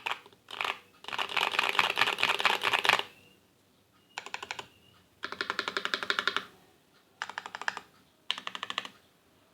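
Typing on a mechanical keyboard with stock (unlubed) KTT Macaron blue light tactile switches in an Idobao ID80 v1 with cherry profile keycaps. The keystrokes come in bursts of fast clacks with short pauses between them; the first long burst, about two seconds in length, is the loudest.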